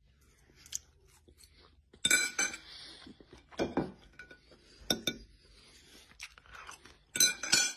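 A person crunching and chewing french fries, in four short loud bursts of crunching.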